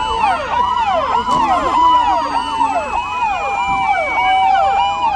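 Several sirens sounding together for a civil defence drill: fast, overlapping up-and-down yelping sweeps over a slowly wavering steady wail.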